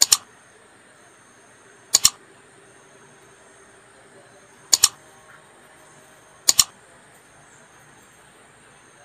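Mouse-click sound effects of a like-and-subscribe button animation: four double clicks a couple of seconds apart, over a faint steady hiss.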